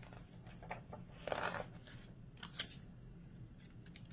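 Soft rustling and crinkling of a picture book's paper pages being handled as a page is taken to be turned, with one rustle about a second in and a sharp crisp crackle near the middle.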